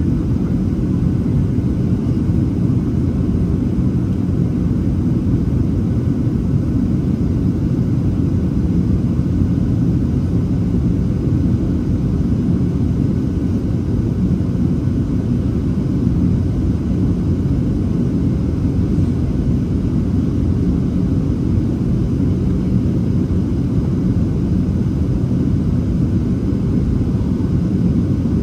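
Steady low cabin rumble of a Boeing 737-700 in flight, heard from inside the passenger cabin: airflow over the fuselage and the CFM56-7B jet engines running evenly.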